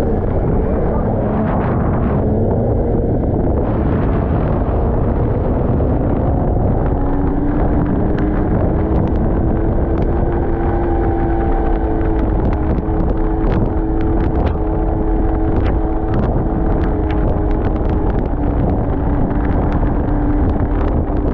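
Snowmobile engine running steadily under way, with wind buffeting the microphone. The engine pitch rises about six seconds in and then holds, and scattered sharp ticks run through the second half.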